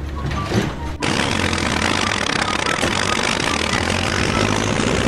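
An engine running steadily under a loud, even rushing noise, starting abruptly about a second in, with faint background music over it.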